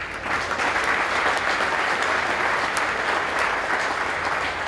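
Audience applauding: a steady round of clapping that starts at once and holds through.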